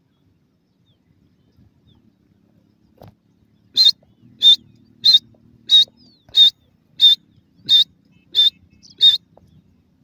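Francolin (teetar) calling: a series of nine short, sharp, high-pitched notes repeated evenly about one and a half times a second, starting about four seconds in.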